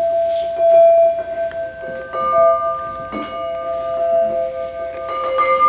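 Struck metal percussion ringing in long tones. One tone holds, then about two seconds in a new strike adds a lower tone and a higher one that ring on together, with a few light strikes between.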